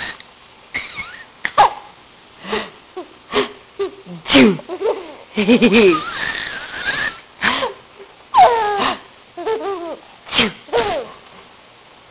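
A man's loud fake sneeze, "shoo!", about four seconds in, and a baby laughing at it in many short bursts of squeals and giggles.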